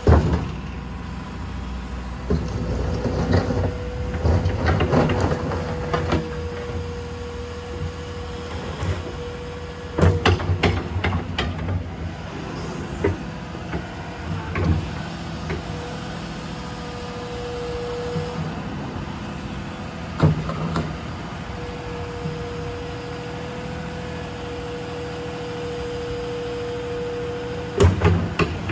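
Komatsu PC210LC-11 crawler excavator running with its 123 kW diesel engine and hydraulics working. A steady whine cuts in and out over several-second stretches, and bursts of metallic clunks and knocks come about ten seconds in, around twenty seconds and near the end.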